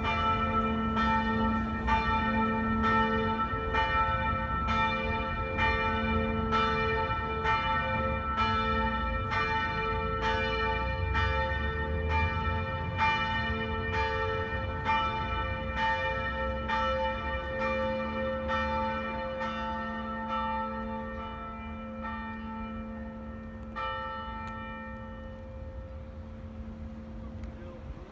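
Church bells ringing, several bells at different pitches struck in a steady run of strokes, a little over one a second. The strokes stop about 24 seconds in and the bells' hum dies away.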